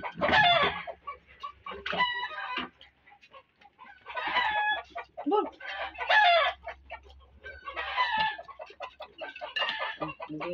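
Chickens calling: several short clucking and crowing calls in a row, one every one to two seconds.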